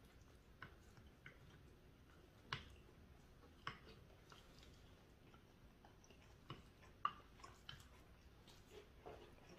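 Quiet eating at the table: about ten light, scattered clicks of chopsticks and spoons against ceramic bowls, the loudest about two and a half and seven seconds in, over faint chewing.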